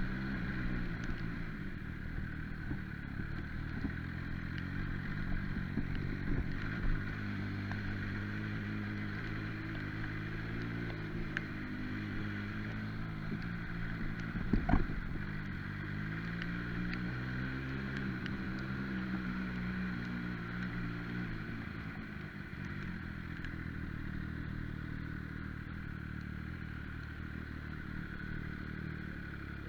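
MV Agusta Brutale 800's three-cylinder engine running on the move, its pitch falling and rising several times with the throttle, over a steady hiss. One sharp knock about halfway through stands out as the loudest sound.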